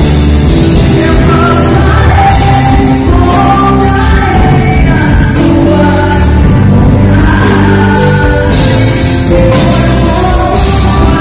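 Loud gospel worship music: singing carried over a full band.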